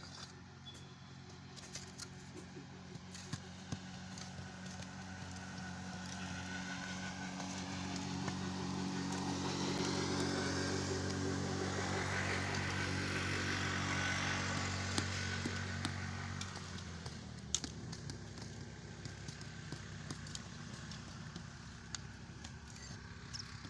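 An engine running steadily, growing louder to a peak about halfway through and then fading, with a few sharp clicks near the end.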